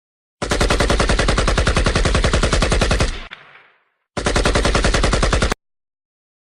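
Automatic gunfire: a long burst of rapid, evenly spaced shots that ends with a fading echo, then a shorter second burst that cuts off suddenly.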